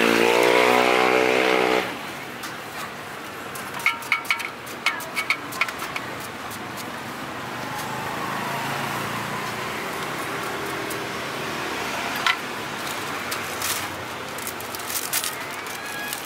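A motor vehicle's engine running loudly close by, which stops abruptly about two seconds in. Then a steady street background with a quick run of light clicks and the crinkle of plastic bags being handled.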